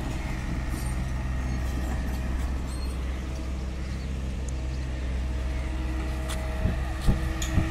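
JCB excavator's diesel engine running steadily, with a few light knocks near the end.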